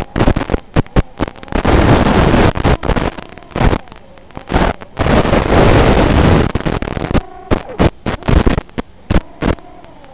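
Loud hissing static from an analog FPV video link, crackling and cutting in and out in bursts, with many sharp pops between the louder stretches.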